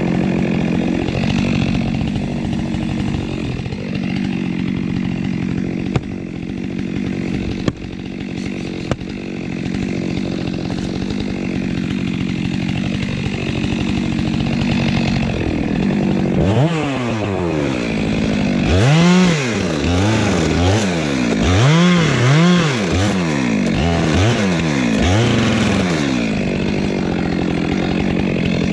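Stihl chainsaw engine running steadily, with a few sharp knocks in the first third. Later its pitch swings up and down repeatedly as the saw is revved, with cutting into the trunk of a tree being felled.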